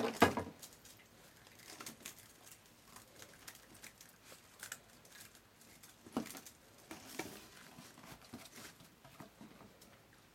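Dachshund puppies scuffling and wrestling on a wooden deck: scattered scratching and pattering of claws on the boards, with a sharp knock right at the start.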